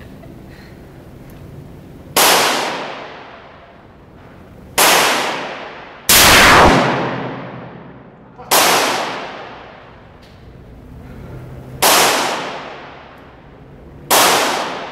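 Six gunshots from a .44 Magnum revolver, fired one by one at uneven gaps of one to three seconds, each a sharp crack that rings on and dies away over a second or two off the walls of an indoor range.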